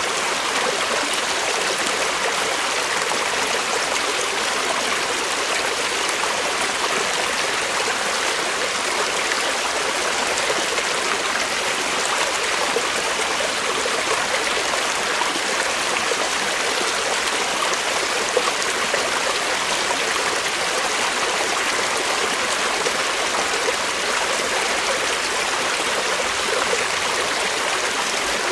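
Creek water flowing and burbling over rocks, a steady, even rush with no pauses or changes.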